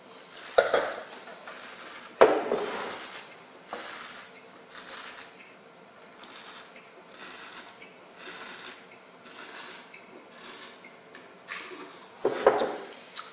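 A wine taster slurping a sip of red wine in two sharp draws, then pulling air through the wine in short hisses about once a second. Near the end he spits it into a spit bucket.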